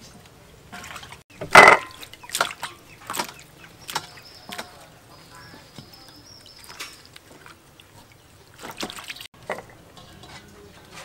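Water splashing and sloshing in a stainless steel bowl as spring onions are rinsed by hand. It comes in irregular bursts, the loudest about one and a half seconds in and another cluster near the end.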